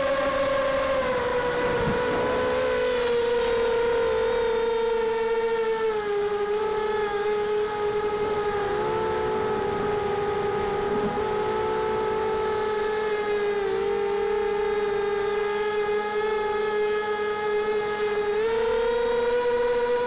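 Multirotor FPV drone's electric motors and propellers whining steadily, several close pitches beating against each other, heard close from the onboard camera. The pitch drops slightly about a second in and again around six seconds, then steps back up near the end as the throttle rises.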